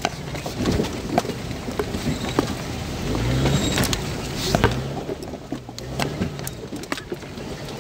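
Toyota Land Cruiser 100 crawling over rough, rocky ground, heard from inside the cabin. The engine runs low, rising in pitch about three seconds in and again around five seconds, with frequent sharp knocks and clicks as the vehicle lurches over the rocks.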